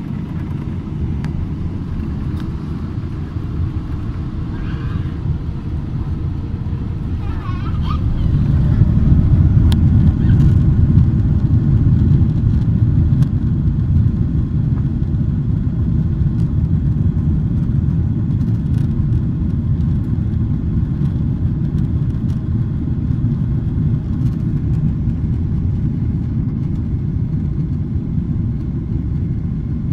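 Boeing 777-300 engines and airflow heard inside the cabin: a steady low rumble that swells about eight seconds in as the engines spool up to takeoff thrust, then holds loud through the takeoff roll.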